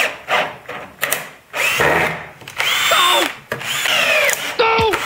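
Cordless drill driving screws into hard maple in a series of short trigger bursts. The motor's whine drops in pitch under load in each burst, with a steep fall near the end as the motor slows to a stop.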